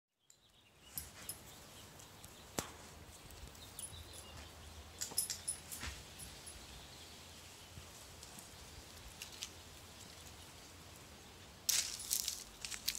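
Faint outdoor background with scattered small clicks and rustles, then, about a second before the end, a run of crackling as dry fallen leaves are crunched and rustled.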